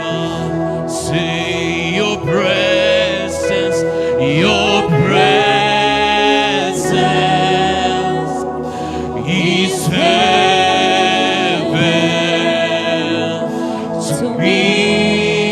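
Gospel worship music: sustained sung phrases, with voices gliding between long held notes over a steady keyboard-like backing.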